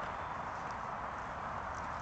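Steady, even hiss of outdoor background noise, with a few faint high ticks.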